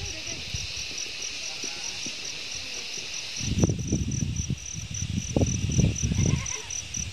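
Insects chirping steadily in a high, regular pulse of about five chirps a second, over a steady insect drone. Low muffled rumbles and thumps come through in the second half.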